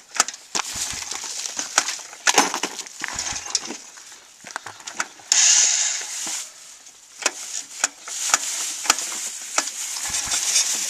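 Honda Foreman 400 ATV's freshly re-ringed single-cylinder engine being pulled over by hand on its recoil starter, not yet firing. Irregular scrapes and knocks, with a loud hissing rush about five seconds in.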